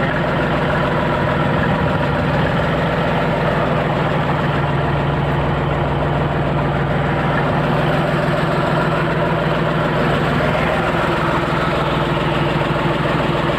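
A fishing boat's engine running steadily at a low, even speed.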